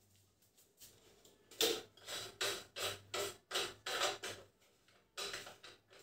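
Plastic scraping and clicking as a pedestal fan's motor head is twisted and pushed onto its pole. It comes in repeated strokes, about two to three a second, starting about a second and a half in, with a brief pause near the end.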